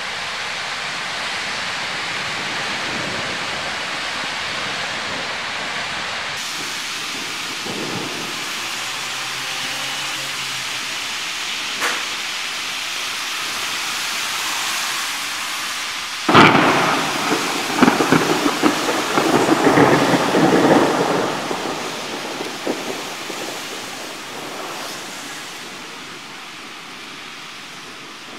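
Heavy rain falling steadily on the city street, then a sudden loud thunderclap a little past halfway, rumbling on for several seconds and fading.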